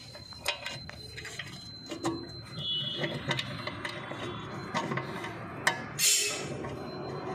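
Hand tools and bolts under a tractor: scattered metallic clicks and knocks with short scrapes, the loudest scrape about six seconds in, as bolts are fitted and worked with a spanner.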